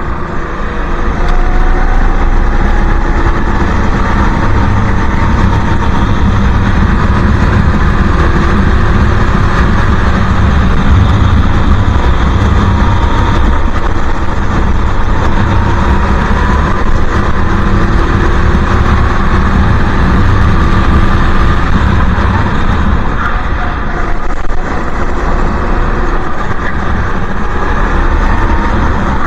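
Racing kart engine heard from onboard, revving up and down as the kart accelerates and brakes through the corners of a lap, over a constant low rumble.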